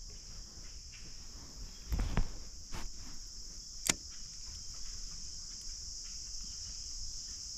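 Steady high-pitched insect chorus. A soft thud comes about two seconds in and a sharp click a couple of seconds later.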